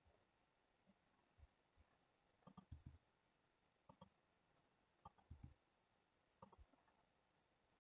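Near silence broken by faint computer mouse and keyboard clicks: four small clusters of one to three sharp clicks, spaced a second or more apart.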